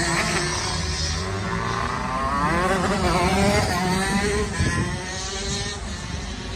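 Racing go-kart engines revving hard, their pitch rising and falling repeatedly as the karts slide through tight spins.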